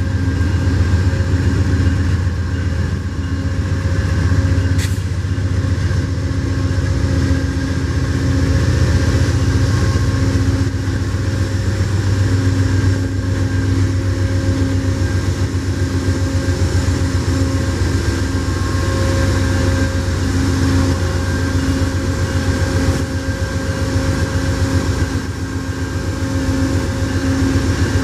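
Diesel locomotive engine running steadily: a loud low drone with steady higher whines above it, and a brief sharp click about five seconds in.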